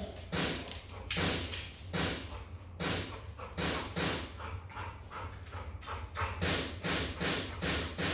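Dog panting hard in quick, noisy breaths, about two to three a second.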